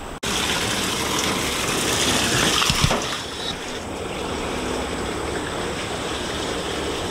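Water from a garden hose running into a partly filled galvanized steel stock tank pool: a steady splashing gush as the tank fills. It starts abruptly just after the start.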